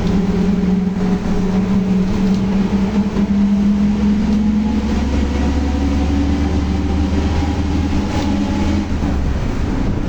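Volkswagen 17.230 OD bus under way, its differential droning loudly as a steady whine over the drivetrain rumble. The whine shifts a little in pitch about four to five seconds in, and the low rumble eases near the end.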